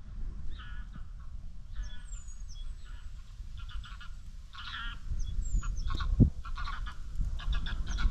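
Geese honking in flight, a run of short repeated calls that grow louder over the last few seconds, with a single thump about six seconds in.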